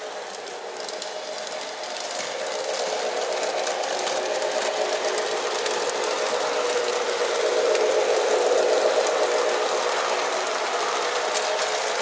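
Lionel Rock Island Rocket model train, led by two E6 diesel units, running on O-gauge Fastrack with a steady mechanical whir and fine clicking from the wheels on the rails. It grows louder as it comes close and is loudest about two-thirds of the way in.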